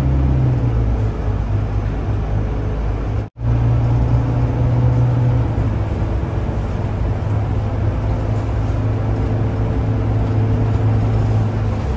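City bus driving, heard from inside the bus: a steady low engine drone with road noise. The sound cuts out for an instant a little over three seconds in.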